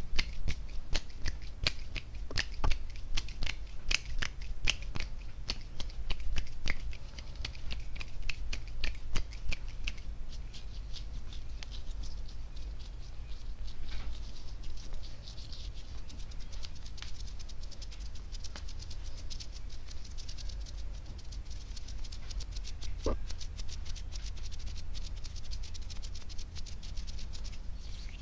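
Hands and fingers moving close to a foam-covered microphone: dense, quick finger clicks and crackles for about the first ten seconds, then softer skin rubbing and fluttering, over a steady low hum.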